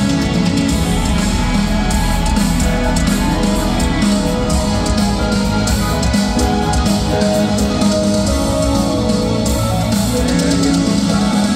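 Rock band playing live: a guitar-led instrumental passage over drums, with no singing.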